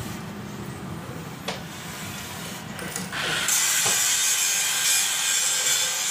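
A tool cutting metal: a loud, steady, high-pitched hissing rasp that starts abruptly about three seconds in, over a low steady hum.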